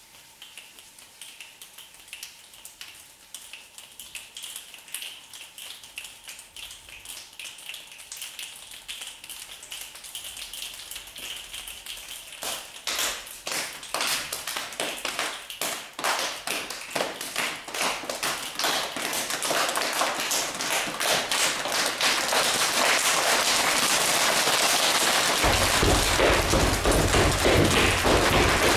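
A group of children making a rainstorm with body percussion: soft hand rubbing and scattered finger snaps thicken into a dense patter of claps and slaps that grows steadily louder, like a downpour. Near the end, feet stamping on the wooden floor add heavy thuds.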